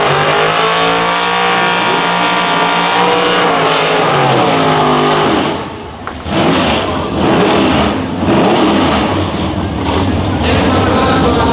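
Drag-racing V8 engines at the start line: a steady high engine note for about five seconds that sags in pitch and drops away, then rougher, louder engine noise with a couple of brief dips, and a deep steady rumble near the end.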